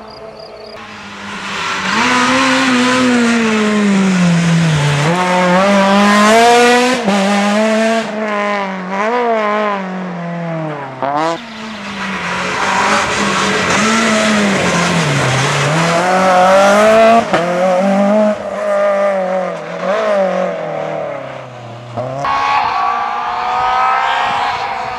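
Citroën C2 R2 rally cars' four-cylinder engines revving hard at full throttle, the pitch climbing and dropping again and again through gearchanges and braking. About 22 seconds in the sound changes abruptly as another car takes over.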